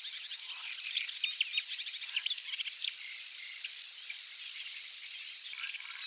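Grasshopper warbler reeling: a high, steady, insect-like trill that stops about five seconds in, with short chirps of other birds underneath.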